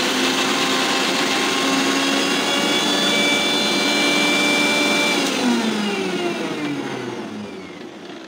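Electric mixer grinder running at full speed, grinding roasted sesame seeds with garlic, ginger and green chillies into chutney. It gives a loud steady whine. About five seconds in it is switched off, and the whine slides down in pitch and fades as the motor winds down.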